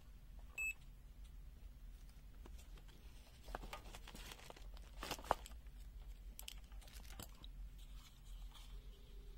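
A short high beep from an ANENG SZ06 digital multimeter as its rotary dial is switched to the resistance range, followed by faint scattered clicks and knocks of handling on the bench, the sharpest about five seconds in.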